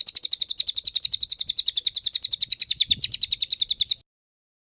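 Songbird giving a rapid, high-pitched trill of sharp repeated chirps, about a dozen a second, that cuts off abruptly about four seconds in.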